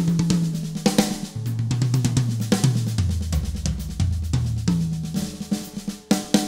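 Yamaha Stage Custom toms played in fast rolls that run down the kit from the high rack tom to the floor toms, each drum ringing at a lower pitch. About two-thirds of the way through the fill starts again from the high tom and steps down once more.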